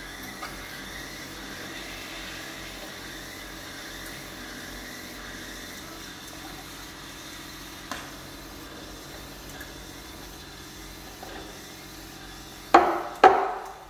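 Eversys E'4m espresso machine dispensing automatically texturized milk into steel pitchers while espresso pours, a steady run of liquid and machine noise. Near the end, two sharp knocks close together as a steel milk pitcher is handled.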